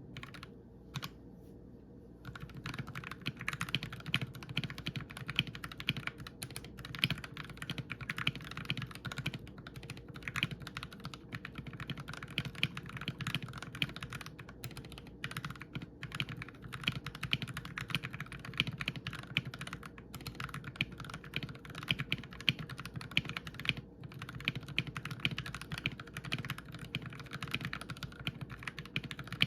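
Typing on a modded Drop ALT mechanical keyboard with lubed Akko Jelly Black linear switches, a foam-filled case and a space bar on lubed, clipped stabilizers. A single keystroke comes about a second in, and steady continuous typing begins about two seconds in.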